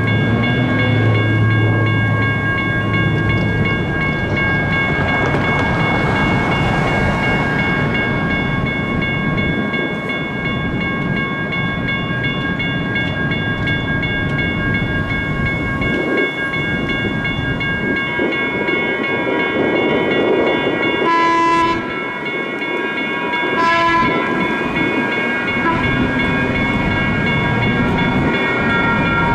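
Railroad crossing bells ringing on and on while a light rail train rumbles on the tracks. Two short horn toots sound about three quarters of the way through.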